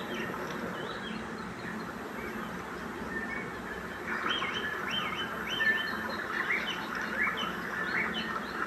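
Forest birds chirping: short, arched notes repeating several times a second, busier from about four seconds in, over a steady background hiss.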